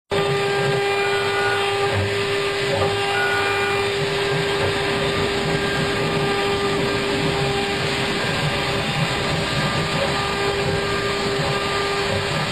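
CNC router spindle running steadily while the bit carves a relief into wood: a constant whine over a continuous cutting hiss.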